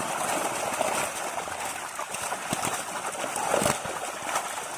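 Water splashing and sloshing as a fishing net is worked in shallow water, with a couple of sharper splashes about two and a half and three and a half seconds in.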